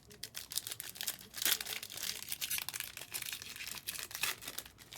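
Foil trading-card pack wrappers crinkling and tearing as packs are opened by hand, a dense run of crackles that is loudest about a second and a half in.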